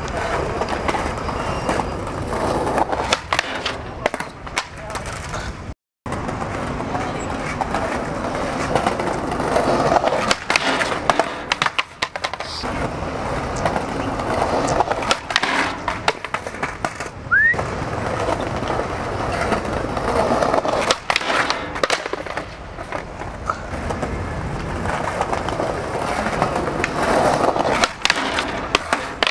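Skateboard wheels rolling over concrete, broken by sharp pops, board clacks and landings as a skater tries tricks on a bench. The sound cuts out completely for a moment about six seconds in.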